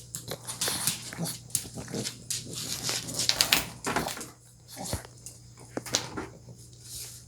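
A pug making short, irregular breathy sounds close to the microphone, busiest about three seconds in.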